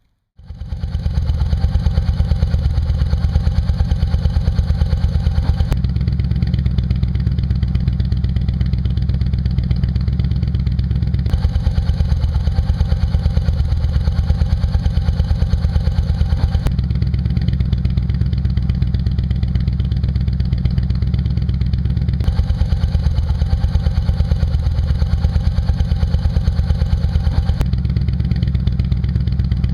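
Yamaha V-Star 950's air-cooled V-twin, fitted with a Rush slip-on muffler with a 1.75-inch baffle, starts right at the beginning and then idles steadily with an even, pulsing exhaust beat.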